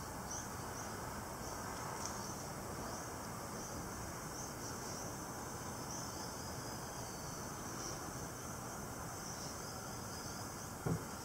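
Faint, short high chirps repeat roughly once a second over a steady background hiss, with a light knock near the end.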